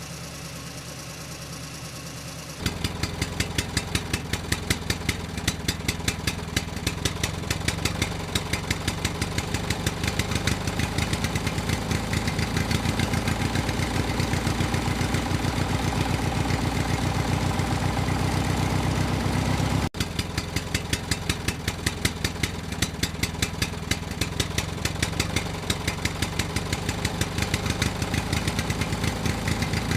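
An engine idling with a rapid, even putter. It starts abruptly about two and a half seconds in, drops out for an instant near the middle, then carries on steadily.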